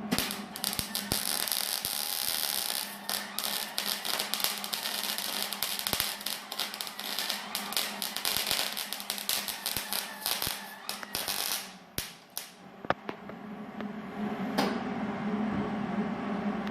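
Electric welder arc crackling and sputtering steadily as a bead is laid, over a steady hum, with a short break a little after halfway before the crackle starts again.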